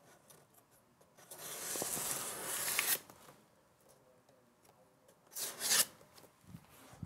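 Scissor blade slicing along the packing tape on the top seam of a large cardboard box: one long rasping scrape about a second in, then a shorter one near the end.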